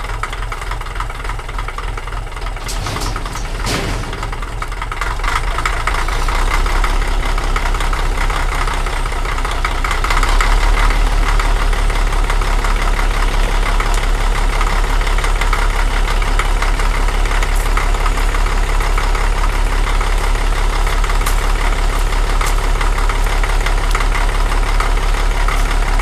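Caterpillar D318 diesel engine of a Link-Belt LS-90 dragline running steadily after a cold start. It gets louder in two steps, about five and ten seconds in, then holds steady. There is a brief knock about four seconds in.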